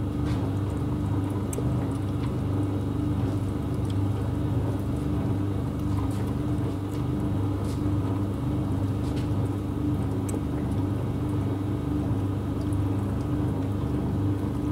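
Steady low mechanical hum with a constant low tone and a slight slow pulsing, with a few faint ticks.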